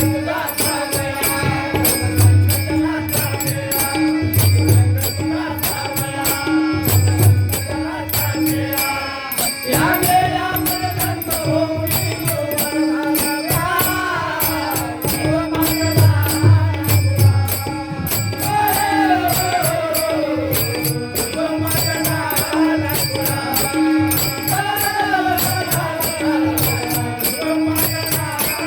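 Live performance of a Marathi devotional song: a man singing long phrases that rise and fall in pitch, over a steady rhythmic beat with jingling percussion. The singing comes in most strongly about ten seconds in.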